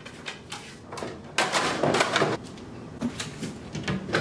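Things being moved about on the shelves of an open kitchen cabinet: a string of knocks and clatter, loudest and densest about a second and a half in, with a few more knocks later.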